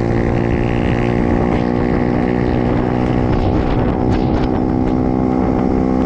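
Pit bike's single-cylinder four-stroke engine running at a steady speed.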